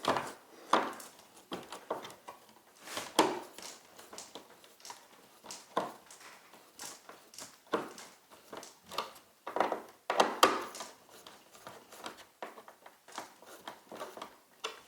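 Irregular clicks, taps and scrapes of hands working a wall light switch and its folded wires into the electrical box.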